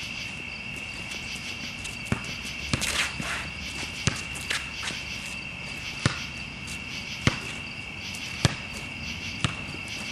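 A basketball bouncing on an outdoor court: about seven single sharp bounces, spaced a second or so apart, over a steady high chorus of crickets.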